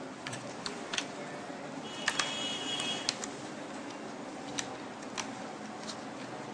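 Small scattered clicks and taps of laptop parts being handled: a connector being seated in its socket and its lock closed. A steady low hum runs underneath.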